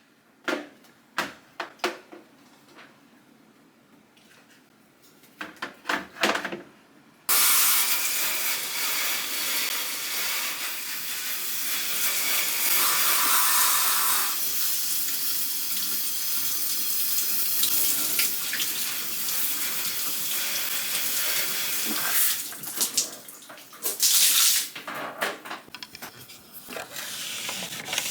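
A few light knocks, then about seven seconds in a steady rush of running water starts suddenly. It runs for about fifteen seconds, then gives way to irregular knocks and rubbing.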